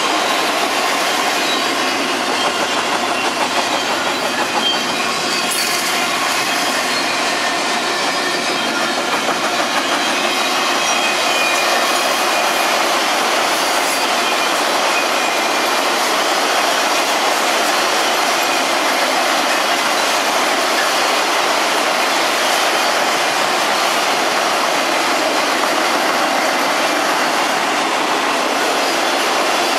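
Freight cars rolling past close by: a steady rumble and rattle of steel wheels on rail. Faint thin squealing tones sit over it for the first several seconds.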